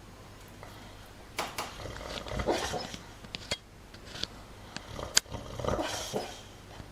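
A dog making short, irregular low growls and grunts in its sleep, with a few sharp clicks, the loudest about five seconds in.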